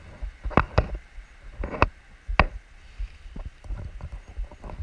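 Irregular sharp knocks and taps of hard objects: a few loud knocks in the first two and a half seconds, then fainter, quicker taps.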